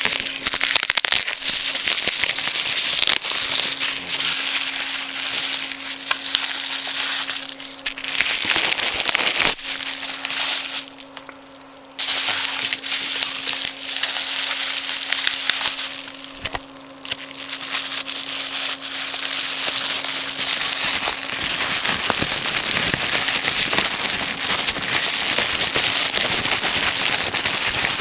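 Continuous crackling and rustling handling noise from hands working on the laptop, dropping out briefly twice, with a faint steady hum underneath.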